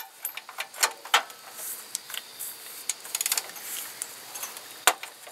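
Ratchet wrench clicking in short runs while a bolt on a serpentine belt tensioner is turned, with scattered metal clicks and taps; a quick run of ticks comes about three seconds in.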